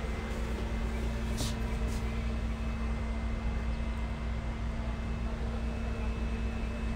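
Steady machine hum: a constant low rumble with a steady mid-pitched drone over it, and a brief hiss about a second and a half in.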